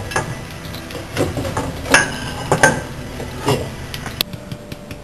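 A utensil clinking and scraping against a frying pan as sliced garlic is stirred in olive oil, over a light steady sizzle. There are about six irregular clinks, and they stop about four seconds in. The garlic is being fried gently to scent the oil.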